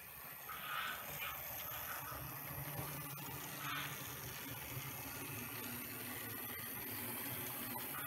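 Märklin H0 model steam locomotive and its freight wagons running on three-rail track: a steady low motor hum and rolling rumble, with a few short higher rasps about a second in and around four seconds in.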